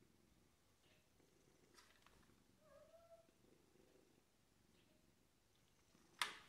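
Domestic cat purring faintly, with a short soft mew about halfway through. A sharp, brief noise near the end is the loudest sound.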